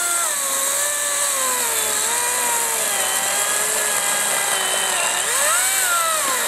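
Makita 36V (18V x2) brushless battery chainsaw cutting through a fallen log about a foot across, its chain hissing through the wood. The motor's whine drops in pitch as the saw slows under load, picks up about five seconds in, then drops again near the end.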